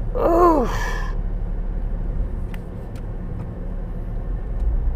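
A drawn-out spoken "oof" at the start, then a steady low rumble with a few faint clicks.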